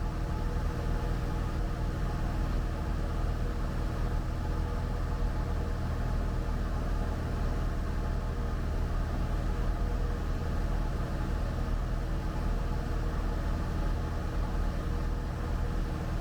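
Cessna 172 Skyhawk's piston engine and propeller droning steadily at cruise, heard inside the cabin.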